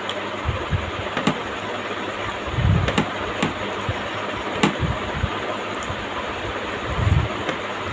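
Eating sounds: chewing, with scattered sharp mouth clicks and a few soft low thumps, over a steady background hiss.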